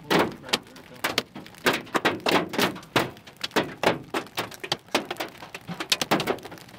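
Hailstones pelting a van: a dense, irregular patter of sharp knocks, several a second.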